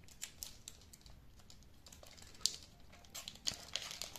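Faint crinkling and light scattered clicks of a small plastic tackle packet being handled and opened by hand, with a sharper click about two and a half seconds in and more small clicks near the end.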